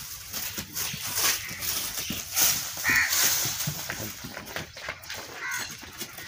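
Farmyard sounds: scattered rustles and knocks as cattle and goats move about on straw and dirt, with two short bird calls, about three seconds in and again near the end.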